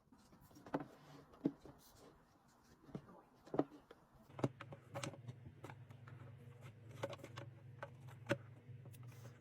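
Faint, scattered taps and clicks from small objects being handled by hand, about eight in all. A low steady hum comes in about halfway through.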